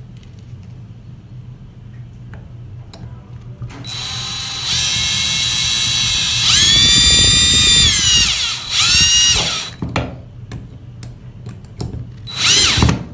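Power drill running under load into the wall for about six seconds. Its whine rises, holds, then sags in pitch as the bit or screw bites, followed by a short second pull. Another brief burst of the drill comes near the end, with small clicks in between.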